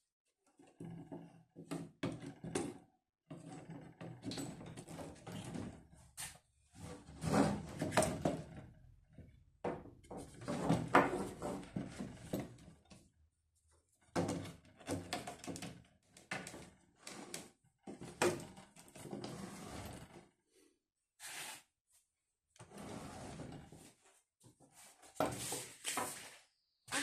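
Irregular wooden knocks, clicks and clatter of folding-boat frame parts being handled and fitted, in uneven clusters with short pauses between them.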